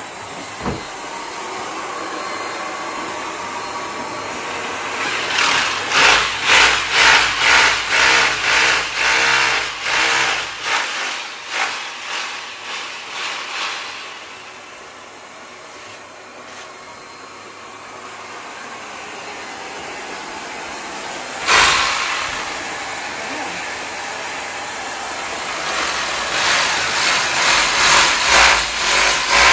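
Electric drill running in repeated loud bursts, pulsing about twice a second, drilling into a wall to hang a mirror. There is a quieter steadier stretch in the middle and a single sharp knock about two-thirds of the way through.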